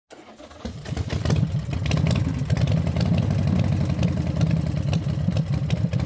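An engine running with a rapid, rough pulse. It comes up about half a second in and stays loud and steady.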